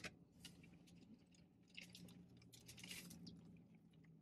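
Faint eating sounds: chewing and handling of juicy fried chicken, with a click at the start and a few short wet bursts about half a second, two and three seconds in, over a faint steady low hum.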